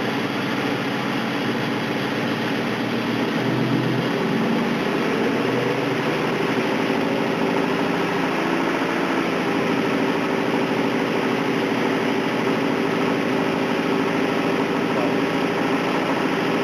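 1999 Ford Mustang GT's 4.6-litre two-valve SOHC V8 running, with a slight rise in speed about four seconds in. It has a rod knock from being run low on oil.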